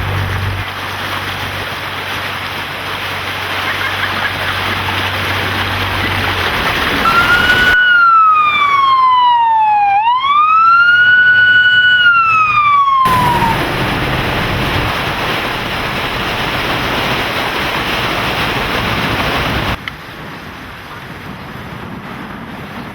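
Emergency vehicle siren wailing over a steady rushing noise: one long sweep that falls, rises, holds and falls again, lasting about six seconds in the middle.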